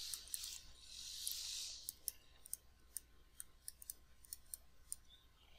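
Stylus tip tapping and scratching on a tablet screen during handwriting: a run of light, irregular clicks, with a soft hiss about a second in.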